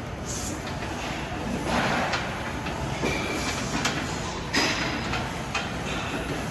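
Steady rumble of gym background noise, with several short knocks and clanks of equipment, the loudest about four and a half seconds in.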